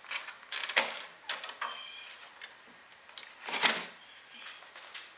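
Plastic clicks and knocks from the mower's handle-mounted plastic battery housing being rotated back and handled, in an uneven string, loudest near the start and about three and a half seconds in.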